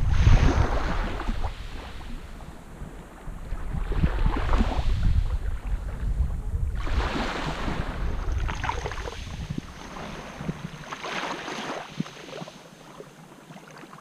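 Small sea waves lapping and washing up over a shore of coarse quartz grains, one hissing wash every few seconds. Under them is a low rumble of wind on the microphone, heavy at first and dying away in the last few seconds.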